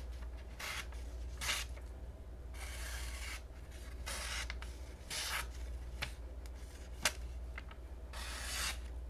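Full Damascus steel mini cleaver folding knife slicing through paper in about seven separate strokes, each a rough, crunchy rasp, with one sharp click about seven seconds in. The coarse, crunchy sound shows a rough edge that cuts but needs sharpening.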